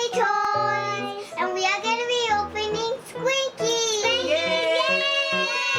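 A child singing a melody over backing music with a steady bass line.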